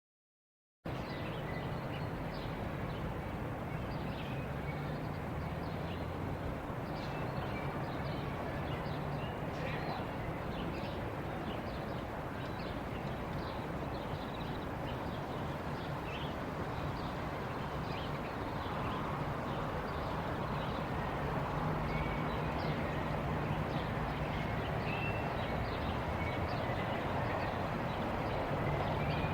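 Small-town park ambience: many small birds chirping over a steady low background rumble, starting about a second in.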